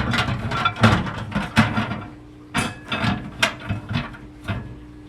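A series of irregular hard knocks and clinks, like glass and plastic parts of a microwave turntable being handled, over the steady hum of a running microwave.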